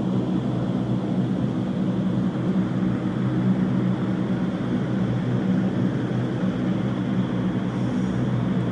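Vertical wind tunnel for indoor skydiving running at flying speed: a steady, unbroken rush of air over a deep, even fan hum.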